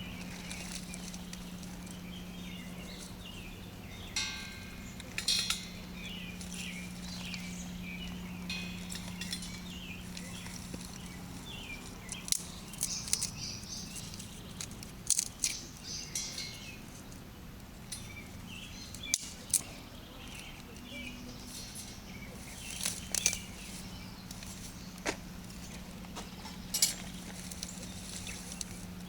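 Small fire crackling and popping irregularly in a wood-burning hobo stove as the fire starter and kindling catch, over a steady low hum.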